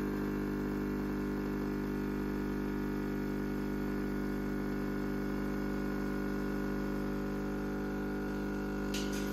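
Nespresso capsule coffee machine's pump running with a steady buzzing hum while it brews espresso into a cup.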